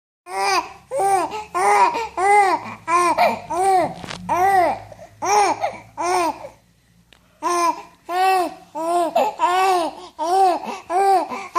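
Ten-week-old baby vocalising in a run of short coos, each rising then falling in pitch, about one a second, with a brief pause a little past halfway.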